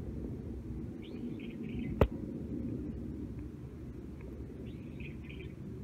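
Twin-engine airliner passing overhead, its jet engines a steady low rumble. A bird chirps in two short bursts, and a single sharp click comes about two seconds in.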